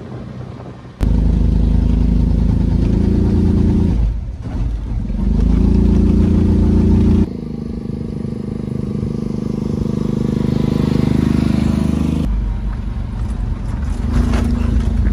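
Small enclosed mini car's engine labouring up a steep mountain road under a load. Its pitch rises twice as it pulls, then holds steady. It is underpowered for the climb.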